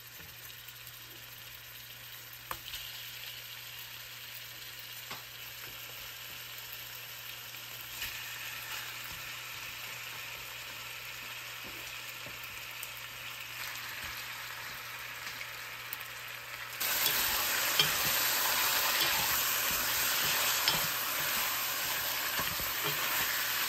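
Flour-dusted lamb chunks sizzling in hot oil in a stainless steel pan, a steady hiss with a few light clicks that slowly grows. About 17 seconds in the sizzle turns suddenly much louder, and a wooden spatula stirs the meat near the end.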